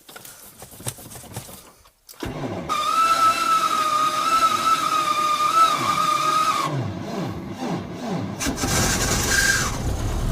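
Lada Zhiguli inline-four being cranked on its starter: a whining, pulsing crank for several seconds. The engine catches about eight seconds in and runs.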